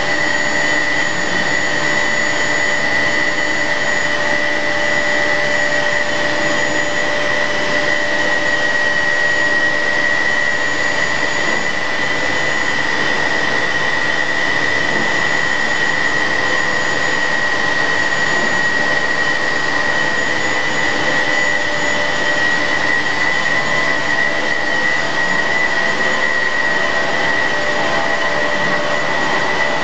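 Steady drone of chemical plant machinery, with motors, pumps and fans running, and a constant high-pitched whine over it.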